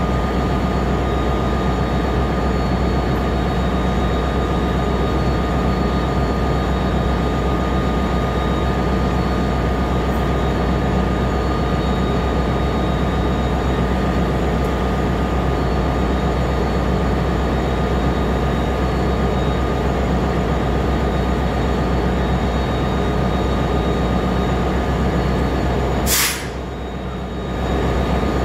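Stationary NJ Transit passenger train running at the platform: a steady, loud hum with a thin steady whine above it. About 26 seconds in there is a sharp click and the noise drops for about a second before it returns at the same level.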